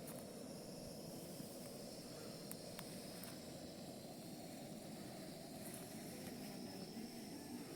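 Faint outdoor ambience: a low, steady hiss with a few small clicks.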